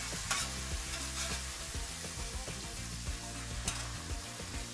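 Rice noodles and prawns sizzling in a wok as they cook down in added sauce and water, stirred and tossed with a spatula, with a few clicks of the utensil against the pan.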